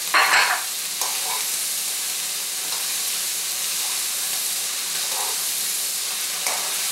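Zucchini spirals and mushrooms sizzling in oil in a hot wok as they are tossed with metal tongs: a steady hiss, with a short louder flare just after the start.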